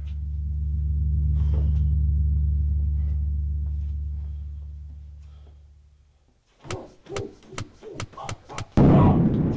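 A deep, low drone swells up and fades away over about six seconds. Then comes a quick run of sharp slaps and knocks from martial-arts sparring, ending in a loud rushing impact near the end.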